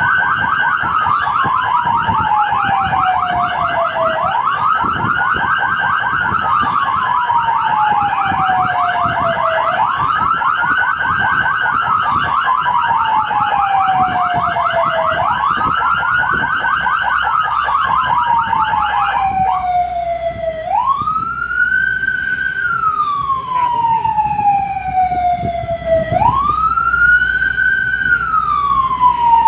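Fire engine siren wailing in a slow cycle, rising quickly and falling slowly about every five and a half seconds, heard from inside the cab. A second, rapidly pulsing siren tone runs over it until about two-thirds of the way through, then stops, leaving the wail alone over the engine's low rumble.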